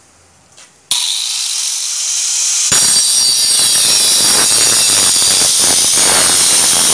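Angle grinder fitted with a toothed circular blade, mounted in a homemade sliding saw frame, switches on about a second in and spins freely with a high whine. From nearly three seconds in the blade cuts through a piece of wood about 2 cm thick, and the sound turns louder and rougher.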